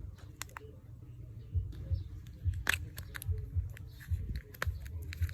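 Calm hip-hop backing music with a steady, regular bass beat, and over it scattered small clicks and crinkles of packaging being handled, one sharper crackle about halfway through.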